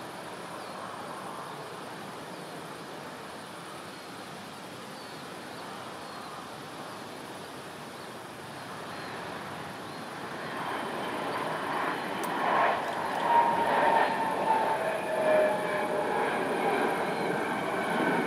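Embraer regional jet landing: a faint, steady jet hum, then from about ten seconds in the engines grow louder with several whining tones that slide slowly down in pitch as the jet touches down and rolls along the runway.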